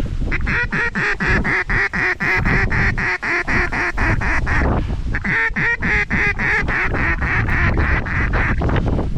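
Mallard duck call blown in two long runs of rapid, evenly spaced quacks, about eight a second, with a short break about halfway. Wind rumbles on the microphone underneath.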